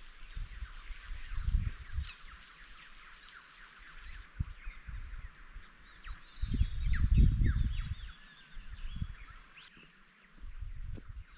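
Birds chirping and calling in many short, quick notes, with bouts of low rumbling beneath; the rumbling is loudest from about six to eight seconds in.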